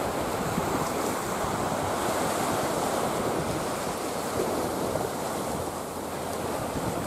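Small waves washing up onto a narrow sandbank from the shallow sea on both sides, a steady rushing surf, with wind on the microphone.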